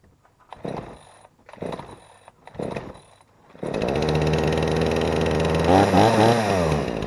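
Gas chainsaw with a 20-inch bar being pull-started: three pulls of the starter cord, then the engine catches about three and a half seconds in and runs, revved up and down briefly near the end. The saw came back as a return marked 'will not start', yet it starts and runs.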